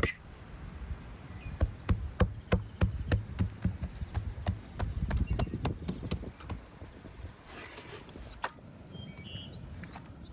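Irregular wooden knocks and taps, most of them in the first seven seconds, as qutab dough is rolled out thin with a rolling pin on a board. Near the end it goes quieter, with a few short high chirps.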